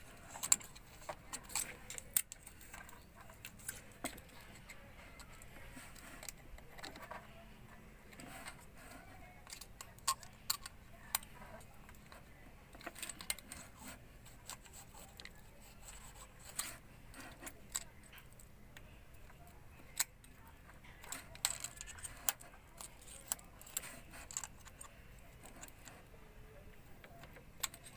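Scattered light metallic clicks and clinks of hand tools on the engine, as the valve clearance on a Suzuki K6A engine is being checked and found to be too tight.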